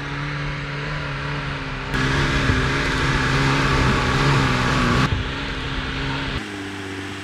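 Off-road 4x4 engine running, its speed rising and dipping a little, heard in short clips that cut in abruptly about two seconds in, about five seconds in and again near the end. The middle clip is the loudest.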